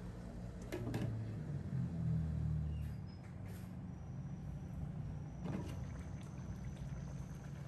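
A glass lid is set down on a stainless steel wok with a clink about a second in, then lifted off again with another clink a few seconds later, over a steady low background.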